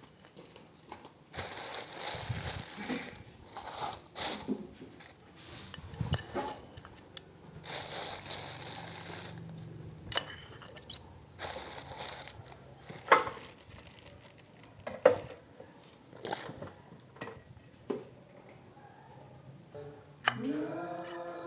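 Sharp metal clinks and taps of small parts and tools being handled, between several bursts of hissing rustle.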